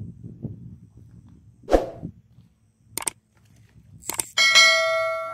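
Subscribe-button animation sound effect: a short loud thump about two seconds in, sharp mouse clicks, then a bell chime ringing out and fading near the end.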